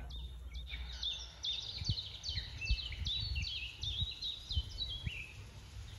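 A songbird singing a long string of short, high, down-slurred notes, about three a second, stopping about five seconds in.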